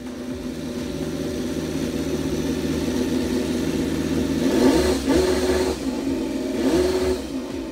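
Homemade miniature V10 engine with Megasquirt MS3 fuel injection idling steadily, then revved twice by hand: a quick rise and fall in pitch past the middle and another near the end.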